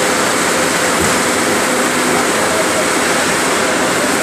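Steady, loud rushing noise of a Hyundai 220LC crawler excavator's diesel engine working as the machine climbs its tracks onto a tilted truck bed. Faint steady tones sit under the noise.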